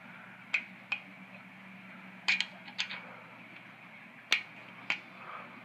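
Sharp little metal clicks and taps, some in quick pairs, as a small toothed sprocket is handled and fitted onto the shaft of a 36-volt, 1000-watt electric motor.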